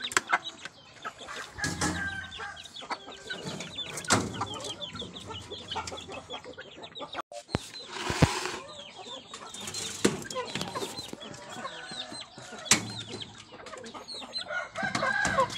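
Chickens clucking continually, many short calls overlapping, with a few sharp knocks and some handling noise.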